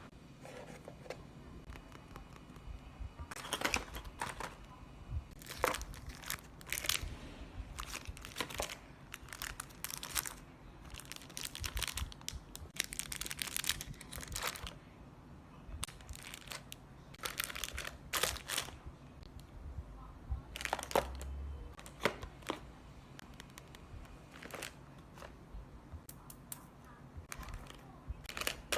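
Paper handled up close for a planner journal: irregular crinkling and rustling, with short tearing sounds, coming in clusters with quieter pauses between.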